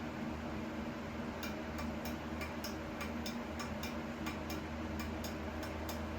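Light, evenly spaced ticking, a little over two ticks a second, starting about a second and a half in, over a steady low hum.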